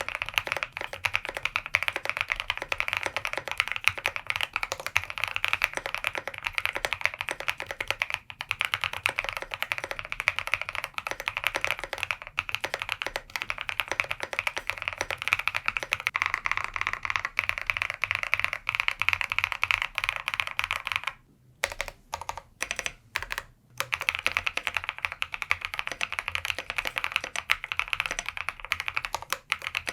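Continuous typing on an Osume Play75 mechanical keyboard. It is first set up in split O-ring mount with PE and plate foam but no case foam. After a short pause broken by a few scattered clicks about 21 seconds in, the typing resumes in silica gel gasket mount with the same foams.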